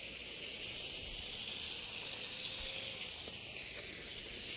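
A steady high-pitched hiss.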